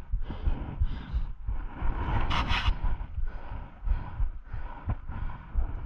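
A mountain biker breathing hard in repeated puffs, with one loud exhale about two and a half seconds in, over a constant low rumble from the trail and wind on the microphone.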